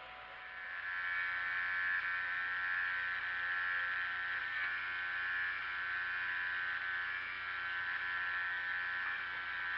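Small electric gear motor of an automatic cat feeder running, turning a newly cut brass gear meshed with plastic gears. A steady whine that comes up about half a second in and holds evenly.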